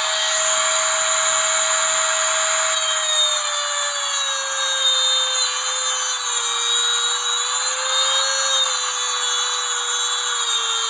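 Dremel rotary tool whining steadily as it cuts through steel winch cable, the strands breaking one by one. Its pitch sags slightly about three seconds in as the tool bears into the cable.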